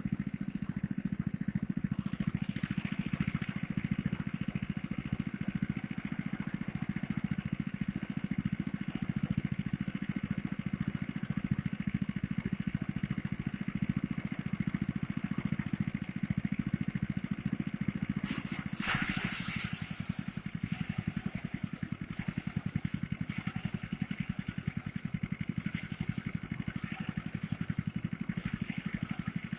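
Small engine of a motorised rice thresher running steadily at a constant speed. About two-thirds of the way through comes a brief hissing rush.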